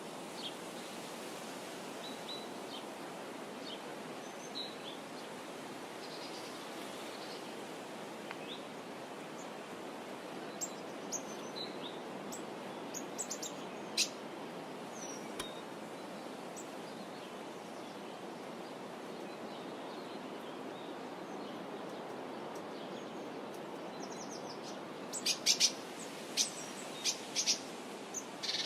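Birds chirping and calling in short, scattered high notes, with a quick run of chirps near the end, over a steady background hiss.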